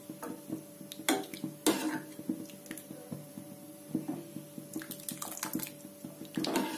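A steel ladle stirring thick sambar in an aluminium pressure-cooker pot: the liquid sloshes and drips, with irregular clinks and scrapes of the ladle against the pot.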